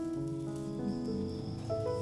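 Background music: a melody of held notes that step from one pitch to the next over a lower accompaniment.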